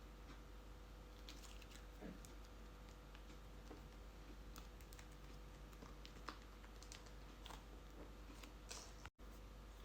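Near silence: faint scattered light clicks and taps over a low steady hum.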